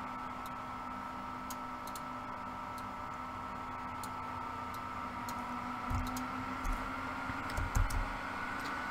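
Scattered light clicks of a computer mouse and keyboard over a steady electrical hum, with a few soft low thumps about six to eight seconds in.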